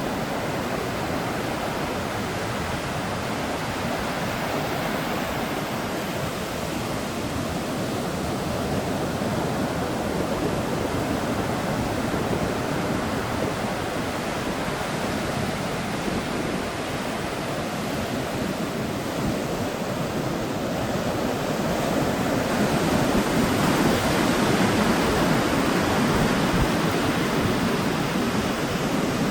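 Sea waves breaking and washing in as a steady rush, swelling louder from about twenty-three seconds in.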